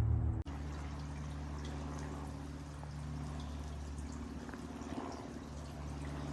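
Faint water dripping and splashing in a garden bird bath over a steady low hum.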